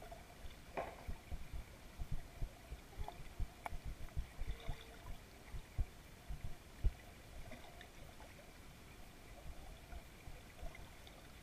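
Swimming-pool water picked up by a submerged camera: irregular low, muffled thumps of water moving against the camera, busiest in the first several seconds and thinning out later, over a faint steady hum.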